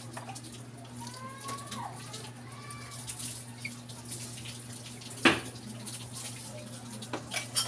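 Hand-washing spoons at a sink: a sponge scrubbing metal cutlery with a little water, a sharp clink about five seconds in and a few lighter clinks near the end, over a steady low hum.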